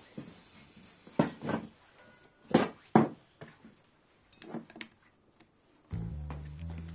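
A handful of separate knocks and clinks of glass beer bottles as one is pulled from a plastic bag and handled. Low background music comes in near the end.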